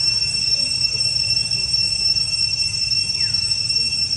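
Steady high-pitched drone of insects, one unchanging tone with a higher overtone, over a low rumble. A faint falling chirp comes about three seconds in.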